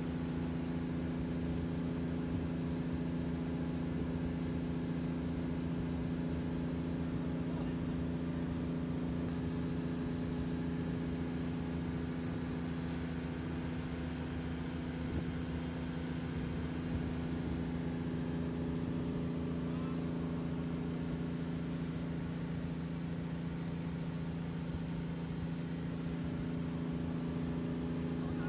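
Wakeboard tow boat's engine running at a steady, unchanging speed, heard from on board the boat.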